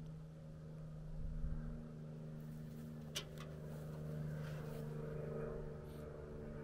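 A steady engine hum, with a sharp click about three seconds in.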